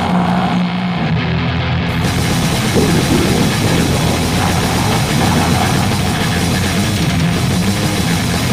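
Lo-fi noisecore music: distorted guitar and drums in a dense, loud wall of noise, the highest frequencies cutting in about two seconds in.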